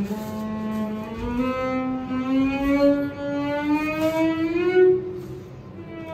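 Solo cello playing a long bowed note that slides slowly upward in pitch. It eases off about five seconds in, and a new, slightly falling note begins near the end.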